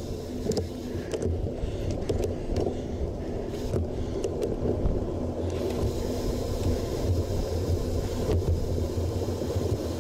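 Road bicycle coasting downhill and gathering speed: a steady rush of wind over the action camera's microphone mixed with tyre rumble on asphalt, plus a few light ticks in the first few seconds.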